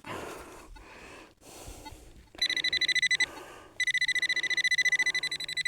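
Metal-detecting pinpointer giving a high-pitched, rapidly pulsing beep from about two and a half seconds in, broken off briefly, then resuming: the probe is close to a metal target in a clod of soil. Before it, faint rustling.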